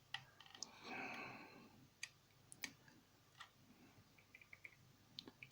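Near silence with a brief soft rustle about a second in and a dozen or so faint, scattered light clicks and taps.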